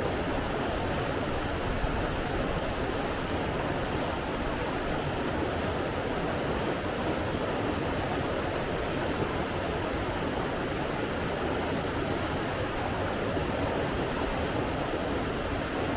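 Steady rush of flowing water, an even unbroken hiss with no distinct splashes or other events.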